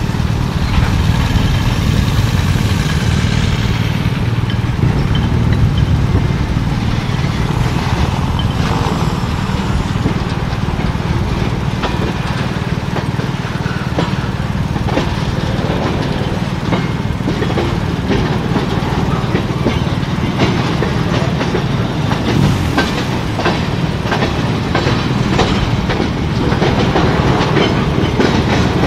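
CSX freight train of tank cars, boxcars and covered hoppers rolling past with a steady rumble, its wheels clicking over the rail joints, the clicks coming thicker near the end. A police motorcycle goes by in the first few seconds.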